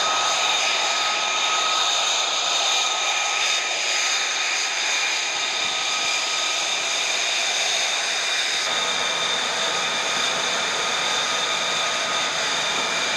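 F-35B Lightning II's F135 turbofan engine running at low power on the ground: a steady jet whine, several high whistling tones over a rushing noise. The tones shift slightly about nine seconds in.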